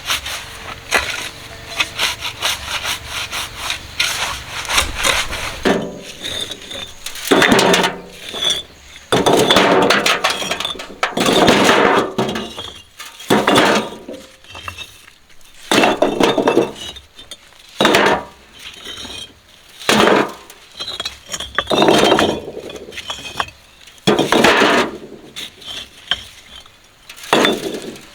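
A shovel scraping through gravelly concrete mix in repeated strokes, about one every two seconds, after a quick patter of small clicks in the first few seconds.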